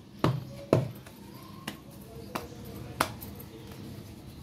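Sharp clicks and light taps from hands shaping dough balls in a ceramic bowl, five in about three seconds, the first two loudest.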